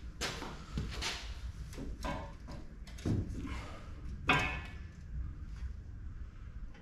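Irregular knocks, clatters and scrapes of hard objects being handled, the loudest about four seconds in.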